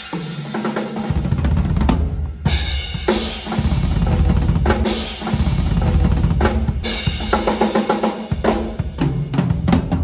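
Drum kit played solo at a sound check, a TAMA Starclassic Bubinga kit with MEINL cymbals: bass drum, snare and cymbals in a driving groove with fills. The cymbals drop out briefly about two seconds in, and a quick run of strokes comes near the end.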